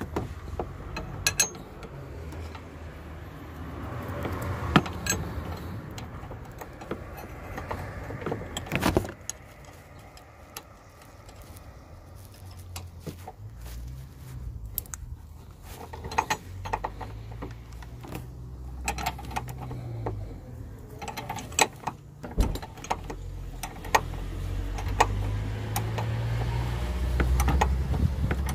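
Irregular metallic clicks and clinks of a spanner working the nut on top of a front shock absorber's strut mount, over a low rumble.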